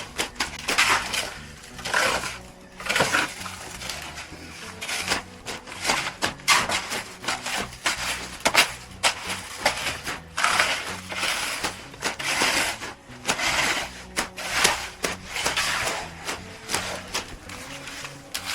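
Repeated gritty crunching and scraping in sand or gravel, roughly one stroke a second, with small clicks and knocks between them.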